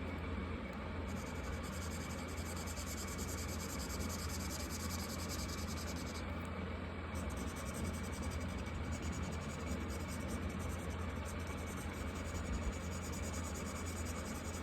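Marker tip scratching across paper in steady strokes, over a constant low hum.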